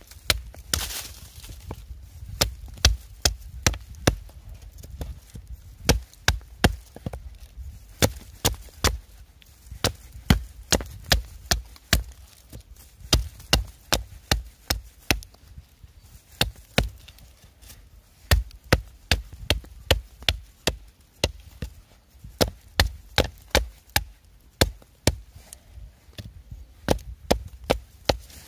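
Wood being chopped with sharp, quick blade strikes, coming in runs of several blows with short pauses between them: firewood being cut up at a campsite.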